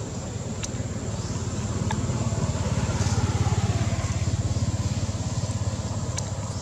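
An engine running with a low, rapid pulsing that grows louder toward the middle and then fades again. A thin, steady high-pitched tone sits above it.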